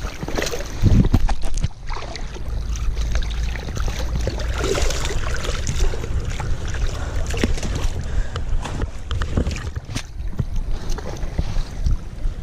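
Wind rumbling on the microphone over water sloshing and splashing as hands work in a shallow stream releasing a trout, with jacket sleeves rustling close by.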